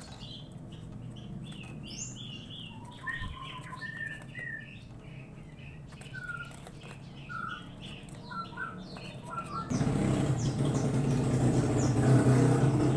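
Javan lark chicks chirping in short, high calls. About ten seconds in, a louder steady rumbling noise with a low hum starts suddenly and runs under the chirps.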